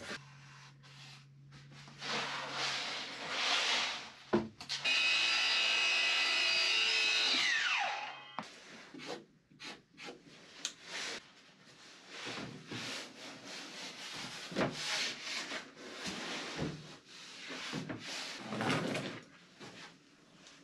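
Woodworking sounds around a thin board template: scraping and rubbing, then a power tool runs for about three seconds and winds down with a falling whine, followed by scattered knocks and rubbing as the board is handled and fitted.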